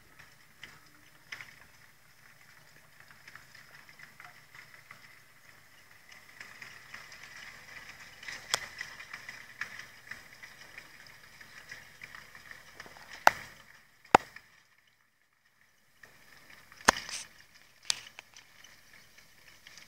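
Landini Ghibli 95 tractor working a Kuhn rotary rake, heard faintly from a distance under crackling noise, with a few sharp clicks. The sound cuts out entirely for about two seconds just past the middle.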